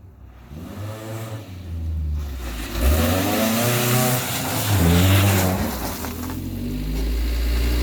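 An engine revving up and down several times, loud, its pitch climbing and falling with each rev.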